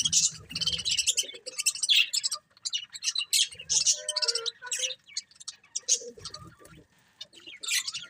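Budgerigars chirping and chattering in quick, short, high notes, with a brief lull about six and a half seconds in.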